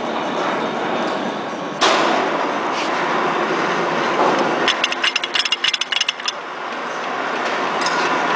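Steady workshop noise, with a knock about two seconds in and, near the middle, a quick rattle of light metallic clicks, about ten a second for a second and a half, as a thin steel rod works at the extruder spindle's locking ring.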